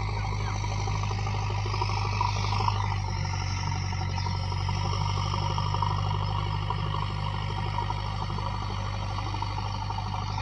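JCB 3DX backhoe loader's diesel engine running steadily, with a low hum and some rattling.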